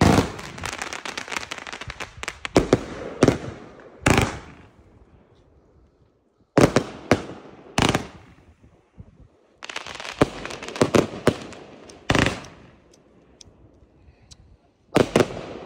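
Consumer firework cakes firing: sharp bangs and stretches of dense crackling, in groups with short lulls between them. The crackle is thickest at the start and again around ten seconds in, with single loud bangs near four, seven, eight, twelve and fifteen seconds.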